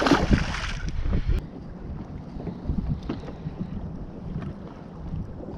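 Wind buffeting the microphone on an open fishing boat, strongest for about the first second and a half, then a steady low rumble with a few faint knocks.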